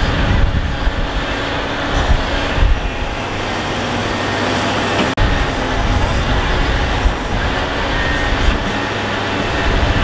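Heavy construction machinery running steadily: diesel engines of excavators and bulldozers working at a sand pit. The sound briefly cuts out about five seconds in.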